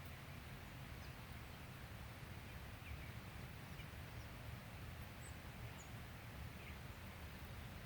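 Outdoor ambience: a steady low rumble with a few faint, short, high chirps from small birds scattered through it.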